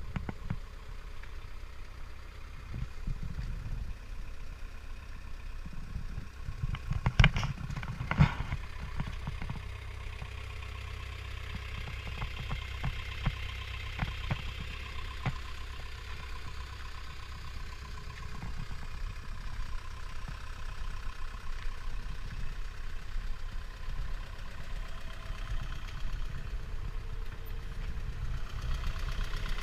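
Cat 305E CR mini excavator's diesel engine idling steadily, with two sharp knocks about a second apart roughly a quarter of the way in and scattered light clicks.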